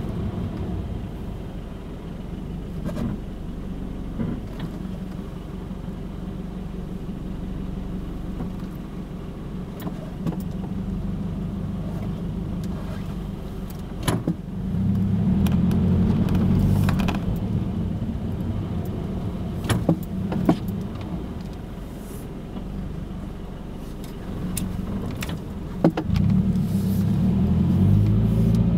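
Car engine and road noise heard from inside the cabin while driving slowly, a steady low rumble that grows louder twice as the car speeds up. A few sharp clicks sound over it.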